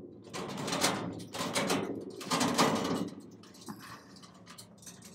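Wheeled stainless steel hopper stand being pushed across concrete: its metal frame and casters rattle and clank in a run of jolts that die down after about three seconds.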